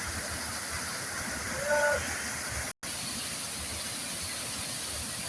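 Waterfall rushing with a steady hiss of falling water. It cuts out for a split second just under three seconds in.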